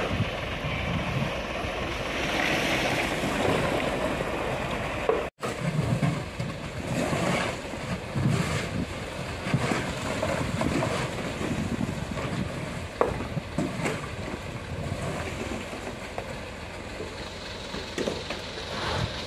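Concrete mixer truck running as it discharges a load: the diesel engine and turning drum run steadily while concrete slides down the steel chute, with a few sharp knocks in the second half. The sound cuts out for an instant about five seconds in.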